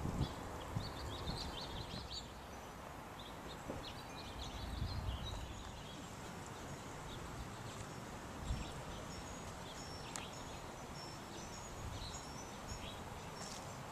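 Outdoor garden ambience: small birds chirping and twittering on and off in the background over a steady hiss, with a few low bumps.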